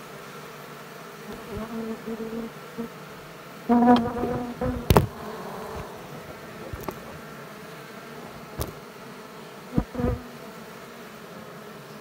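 Asian honeybees (Apis cerana) buzzing over their open comb, with a louder buzz about four seconds in as a bee passes close. Several sharp knocks are heard later.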